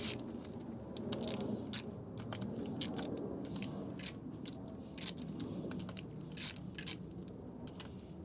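Hand tools working on the camshaft bearing cap nuts of a VW Golf Mk2 16v cylinder head: irregular metallic clicks and scrapes, as the caps are loosened and lift under valve spring pressure.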